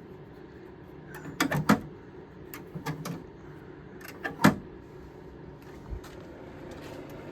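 Vent control on a 1977 GE Super Thrust window air conditioner being worked: a few sharp clicks and clunks as the vent door is opened, about a second and a half in and again near the middle, over a steady low hum.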